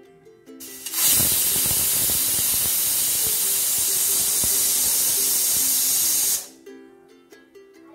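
Stovetop pressure cooker whistling: its weight valve lifts and lets out a jet of steam, a brief spurt and then a loud, steady hiss for about five seconds that cuts off suddenly. It means the cooker has come up to pressure, and it is one of the whistles counted to time the cooking.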